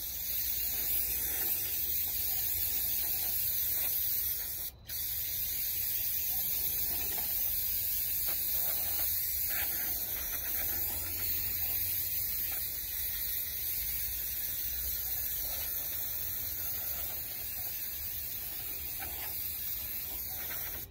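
Aerosol can of brake parts cleaner spraying in one long, steady hiss, broken by a short pause about five seconds in. It is flushing out the transmission pan to wash away debris and clutch material.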